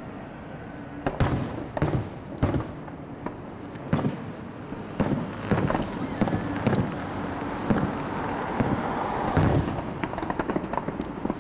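Aerial firework shells bursting in a series of booms, roughly one a second, with a quicker run of small cracks near the end.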